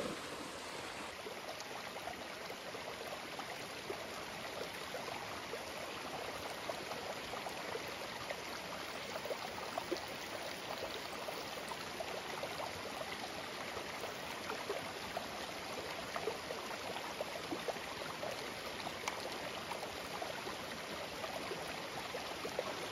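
Shallow stream running over flat rocks, a steady rushing of water.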